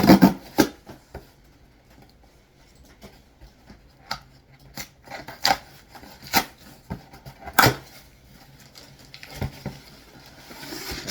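A cardboard shipping box and its packing being opened and handled by hand: a string of separate taps, clicks and knocks, with some rustling near the end.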